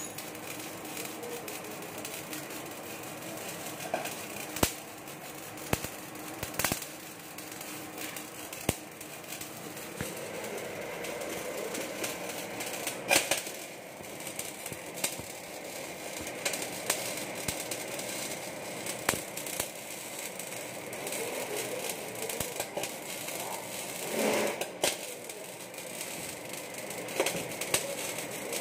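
MIG (GMAW) welding arc on a 6-inch schedule 40 black iron pipe, a steady crackle with scattered sharp pops.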